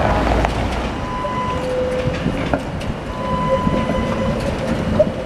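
Tatra T3 tram rolling along its rails through a curve: the wheels click over the rail joints and a thin steady whine comes and goes over a low rumble.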